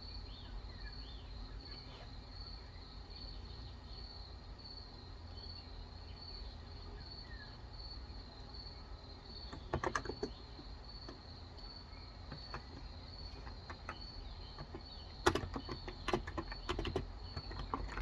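Two short bursts of typing on a Cox Endeavor 35g electrostatic capacitive keyboard, one about halfway through and a longer one near the end, giving soft clustered key clacks. Behind them run a steady high pulsing chirp and, near the start, a few faint bird calls.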